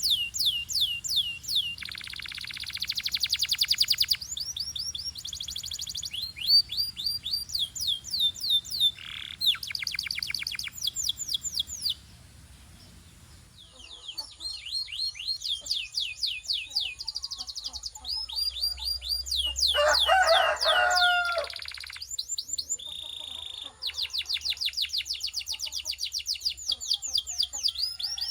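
Canary singing: fast rolling trills of rapidly repeated sweeping notes, switching from one trill to the next. It breaks off for a moment about halfway, and a bit later comes a harsher, lower passage.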